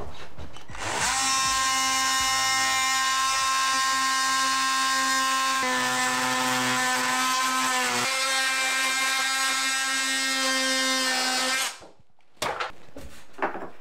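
Oscillating multi-tool with a flat flush-cut blade cutting a wooden cabinet panel flush with the cabinet top. It gives a steady high buzz that starts about a second in and shifts pitch slightly twice as the blade bites. It stops shortly before the end, followed by a few light clicks.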